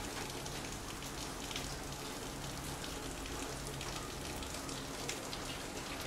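Steady rain falling, with a patter of many small drops.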